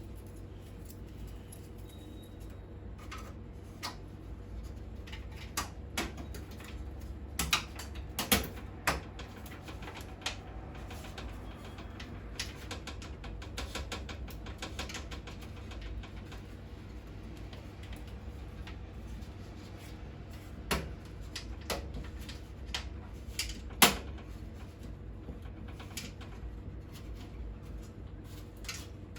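Scattered clicks, taps and knocks of hands handling computer parts and cables, with a steady low hum underneath. A cluster of clicks comes about a third of the way in, and the sharpest knock comes toward the end.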